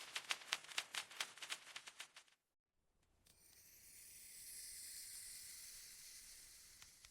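Rapid key presses on a mechanical keyboard, about six clicks a second, stopping after about two seconds. After a short pause a soft hiss swells up and fades away over about four seconds, with a couple of key clicks near the end.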